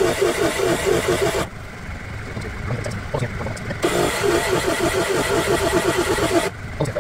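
Honda 12-volt portable tire compressor running under load as it pumps up a tire, its piston making a rapid, even pulsing. The sound drops quieter for a couple of seconds, then returns, and it cuts off abruptly near the end as the compressor is switched off.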